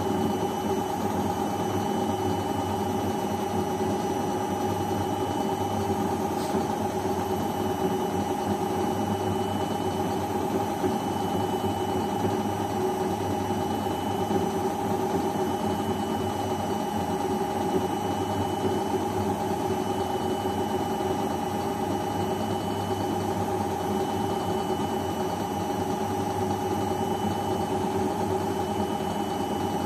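Beko front-loading washing machine running through a cotton programme, a steady motor hum with a faint high whine over it and no breaks or changes.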